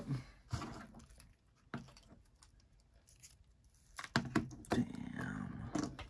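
Light clicks and scraping from hands handling small iPod parts and a precision screwdriver on a tabletop: a couple of single clicks in the first two seconds, then a busier run of clicks and rustling in the last two seconds.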